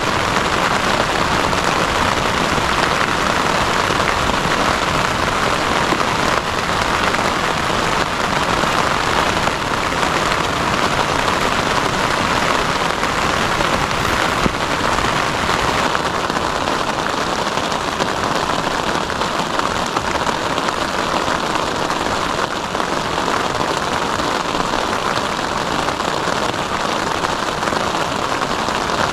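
Heavy rain falling steadily, a dense even hiss of drops striking a surface; a little past halfway the hiss shifts slightly higher.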